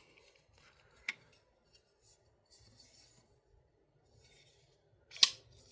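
A folding knife being handled: a faint click about a second in, then one sharp, loud click near the end.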